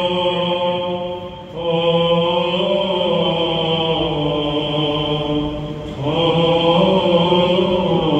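Byzantine liturgical chant sung by a male voice in long held notes, stepping from pitch to pitch, with new phrases starting about a second and a half and six seconds in.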